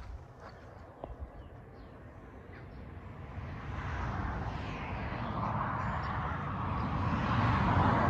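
A car passing on a nearby road: its tyre and engine noise swells steadily over several seconds and is loudest near the end, over a few footsteps early on.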